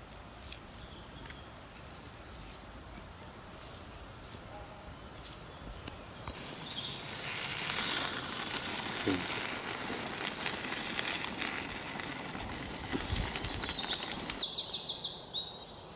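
Scattered bird chirps at first; from about six seconds in, a steady sizzling hiss rises as the lamb and vegetable stew simmers in a clay güveç pot over charcoal. Near the end a bird's rapid, repeated high call comes in.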